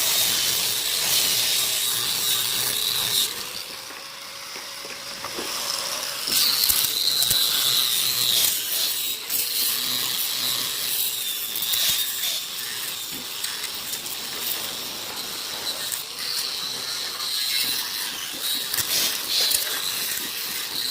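Woodworking machine running and working wood: a steady, hissy mechanical noise with rapid clicking, which drops quieter for about two seconds near four seconds in.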